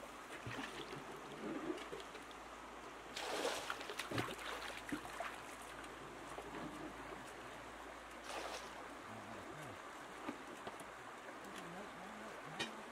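Shallow river water trickling and flowing over stones, a steady wash of noise, with louder brief rushes about three seconds in and again about eight seconds in.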